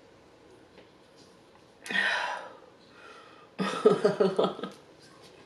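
A woman's breath out, strong and breathy, about two seconds in. About a second later comes a run of short breathy voiced sounds, about six a second, as she takes a forkful of food into her mouth.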